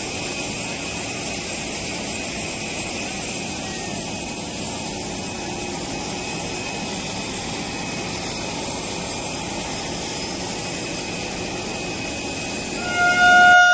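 Steady jet aircraft noise on an airport apron: an even rushing drone with a faint high whine over it. It stops near the end, where a louder sound cuts in.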